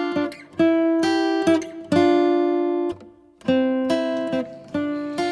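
Background music of strummed acoustic guitar chords, each chord struck sharply and left ringing, with a short break about three seconds in.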